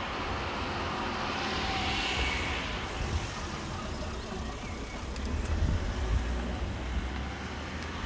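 Road traffic noise: a vehicle passing, loudest about two seconds in, with irregular low rumbles later.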